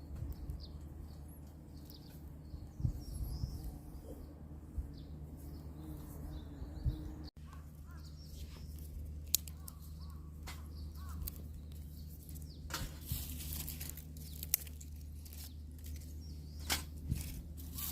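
Outdoor ambience: small birds chirping now and then over a steady low rumble, with scattered light clicks and taps.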